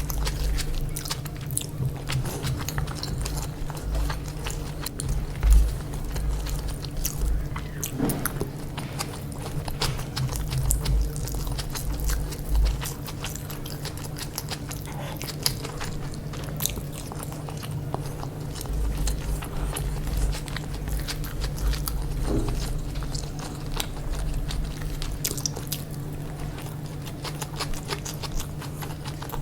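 A person chewing and biting chicken biryani close to the microphone, with wet mouth clicks and occasional crunches throughout.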